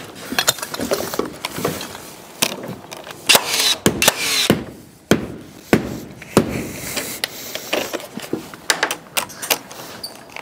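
Pine framing timber knocking and clattering as a nog is handled and set between roof trusses: a string of sharp, irregular wooden knocks.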